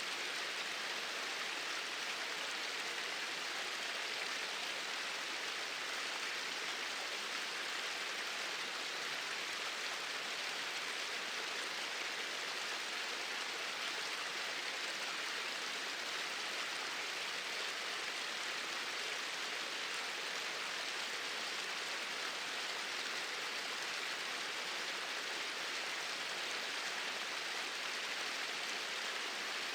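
Two small waterfalls pouring steadily: an even, unbroken rush of falling water, more hiss than rumble.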